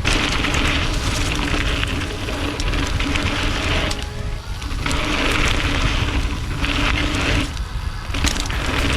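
Wind rumbling over a GoPro's microphone, with the hum and crunch of a mountain bike's knobby tyres rolling fast on a packed-dirt jump line. Twice, about four and seven and a half seconds in, the tyre noise drops out for a moment as the bike leaves the ground over jumps.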